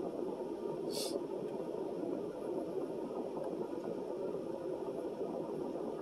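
Steady low rushing hum inside a car cabin, with one brief crisp click about a second in.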